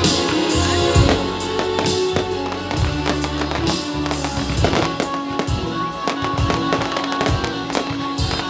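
Fireworks bursting in quick, irregular succession over loud music with steady tones and a bass line.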